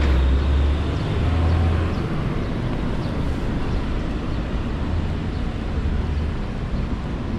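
City road traffic passing, a steady noise of engines and tyres with a deep low rumble that swells in the first two seconds and again about five seconds in.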